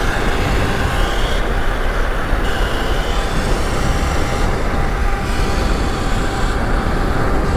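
Wind rushing over the microphone on a fast-moving electric bike, a steady loud roar with heavy low buffeting.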